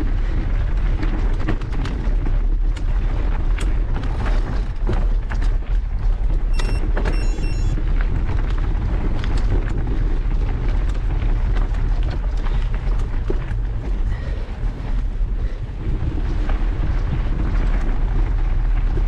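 Wind buffeting the microphone and a mountain bike rattling over a loose, rocky dirt track, with many sharp knocks and clicks from the tyres and frame hitting stones. A brief high tone sounds about seven seconds in.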